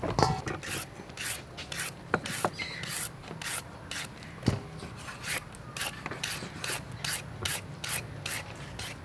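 Vegetable peeler scraping the skin off a carrot in quick repeated strokes, about three a second. A knife knocks on a wooden chopping board twice.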